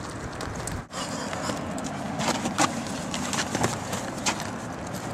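Sneakers running on asphalt at the start. After a sudden break there is rustling with a few sharp knocks and clicks as a backpack is set down and opened, over a steady outdoor background hiss.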